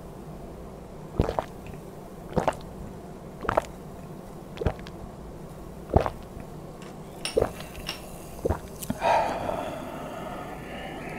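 A person gulping down a drink with seven gulps, one about every second. A long breathy exhale follows near the end.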